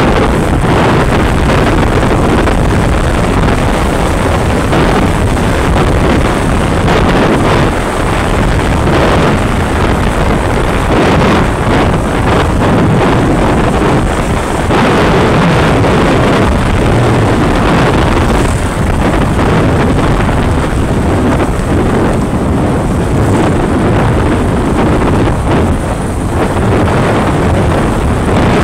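Loud, steady wind rush over a phone's microphone on a moving motorcycle, with the motorcycle running underneath.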